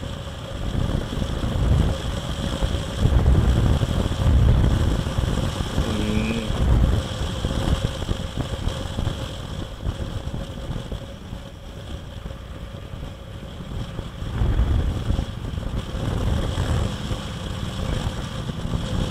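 Motorstar Easyride 150N motorcycle running at a steady cruising speed, with wind buffeting the camera microphone in uneven gusts of low rumble.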